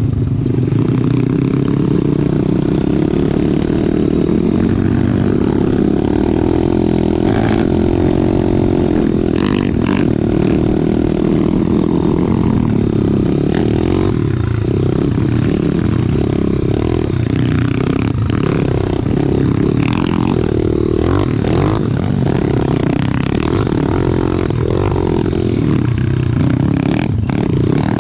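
Pit bike's small four-stroke single-cylinder engine running steadily under way, close up from the bike being ridden, with scattered knocks and rattles as it goes over the rough dirt trail.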